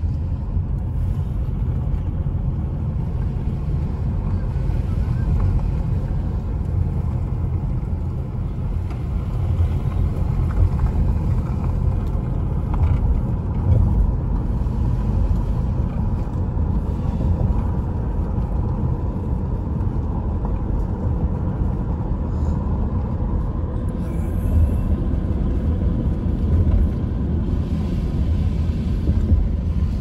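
Steady low road rumble heard from inside a car driving on wet pavement: engine and tyre noise with no sudden events.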